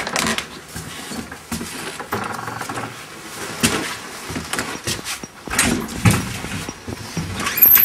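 Irregular clicks and knocks at uneven intervals over a low rustling, with a few louder knocks in the second half.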